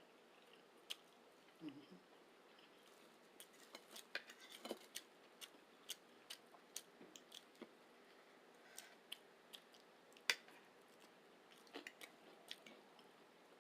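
Quiet close-miked eating: soft chewing and wet mouth clicks, with scattered sharp clicks and taps, the sharpest about ten seconds in.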